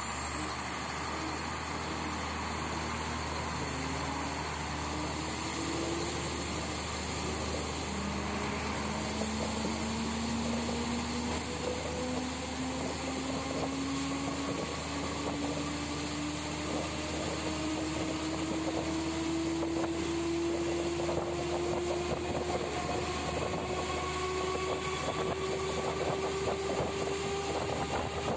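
Diesel railcar accelerating away from a station, heard from aboard: a steady low engine hum under a transmission whine that climbs slowly in pitch as the train gathers speed.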